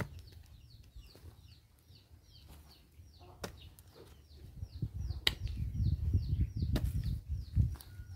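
A long metal digging bar driven and levered into soil around a shrub's roots: dull scraping thuds that get busier in the second half, with a few sharp knocks, the loudest a little past halfway. A bird's short high falling chirp repeats evenly, about two to three times a second.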